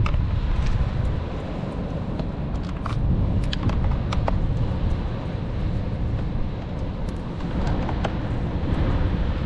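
Steady low outdoor rumble with scattered light clicks and taps.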